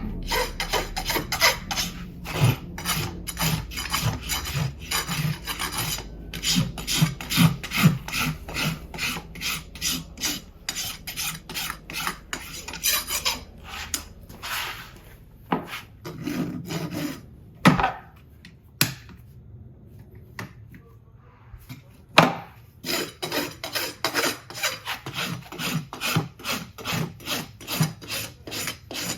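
A farrier's hoof rasp filing a horse's hoof in quick, rhythmic strokes, about two to three a second. There are short pauses midway, and a couple of sharp knocks.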